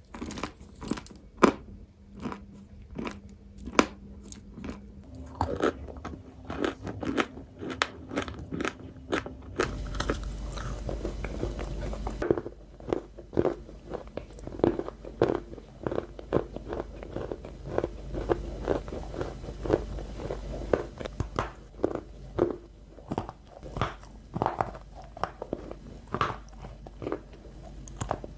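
Close-miked biting and chewing of crunchy snack balls: a dense, irregular run of sharp crunches all the way through.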